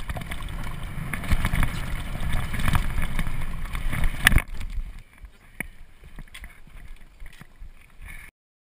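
Bicycle ridden fast down a dirt trail, heard from a camera on the handlebars: rushing wind noise and the bike rattling over bumps, with a sharp knock about four seconds in. After that it rolls on more quietly with occasional clicks, then cuts out shortly before the end.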